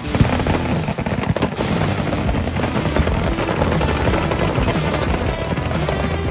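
Continuous rapid gunfire from many guns firing at once, automatic weapons among them: a dense, unbroken crackle of shots with no pause.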